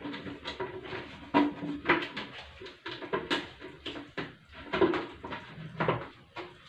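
Plastic lid being twisted and pressed shut on a clear plastic jug: an irregular run of clicks and knocks with short plastic squeaks.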